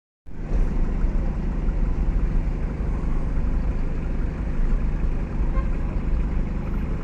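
Steady low rumble of car engines idling and creeping in slow city traffic, heard from inside a car's cabin.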